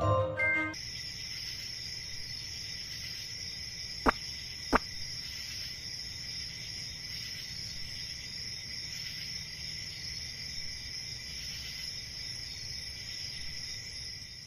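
Steady night-time chorus of crickets, after a short music cue ends in the first second. About four seconds in come two sharp taps, roughly half a second apart.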